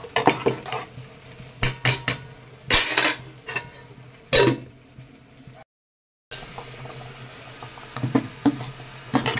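Long metal ladle stirring and scraping through simmering rice-and-lentil khichuri in a metal pot, with irregular clinks against the pot's side. The sound cuts out for a moment just past halfway.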